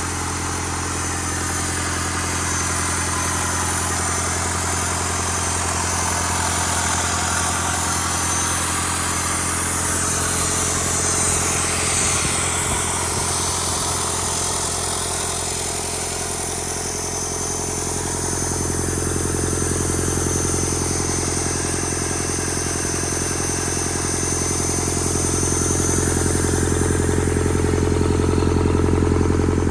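Rebuilt Doosan D34P diesel engine running steadily on a post-rebuild test run, growing somewhat louder and deeper in the last third.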